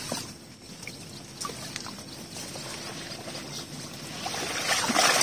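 Water sloshing and trickling with plants rustling as a person in waders moves through a flooded, reed-grown field, with a few small clicks and a louder rush of sloshing and rustling near the end.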